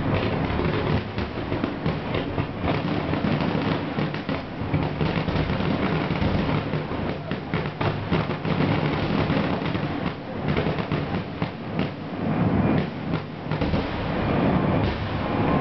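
Aerial fireworks bursting in rapid, overlapping succession, a continuous barrage of booms and crackle with no pause between shells.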